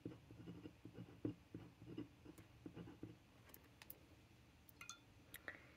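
Faint, soft scratching and tapping of a pen writing on a paper card for about three seconds, then a few light clicks near the end.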